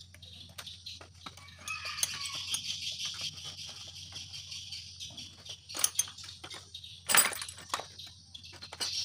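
Chickens clucking and small birds chirping in the background, with scattered light clicks and knocks and a louder clatter about seven seconds in.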